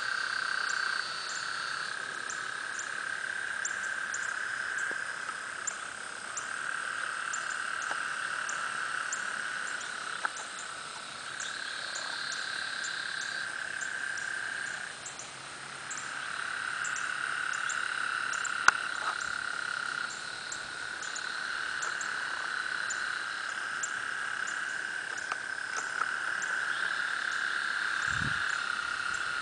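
A chorus of frogs calling from a flooded pond, with long overlapping calls several seconds each that pause and resume, over a fast, faint high clicking.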